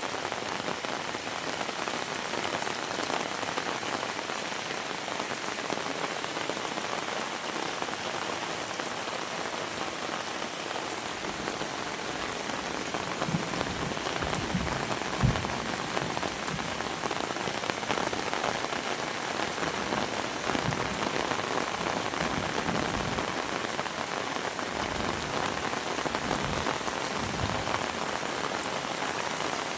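Heavy rain falling steadily as an even hiss. In the second half a few low thumps come through it, the loudest about fifteen seconds in.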